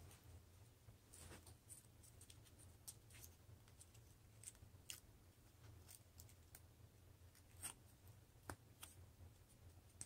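Near silence: faint, scattered soft clicks and rustles of a small piece of paper being handled and folded between the fingers, over a faint low hum.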